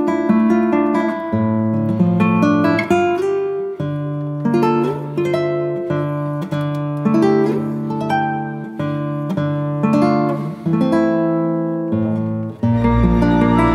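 Background music played on plucked acoustic guitar, a run of picked and strummed notes. Near the end a deep bass layer and fuller sustained tones come in.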